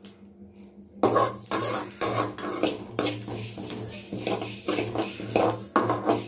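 Perforated metal ladle stirring and scraping roasting sesame seeds and spices in an aluminium kadai, in a run of quick scraping strokes that starts about a second in.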